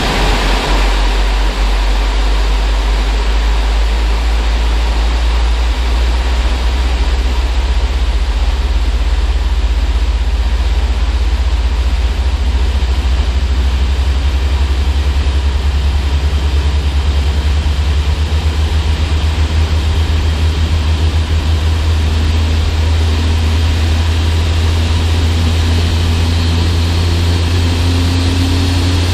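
Rolls-Royce Trent 1000 turbofan on a Boeing 787-9 starting up: a steady low rumble, with a faint whine rising slowly in pitch near the end as the engine spools up.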